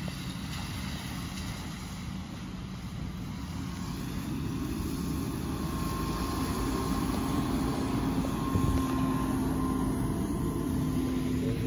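A ZIU-682 trolleybus drawing near over low street noise: a thin electric motor whine comes in about five seconds in and grows louder, and its pitch starts to fall near the end as the trolleybus slows.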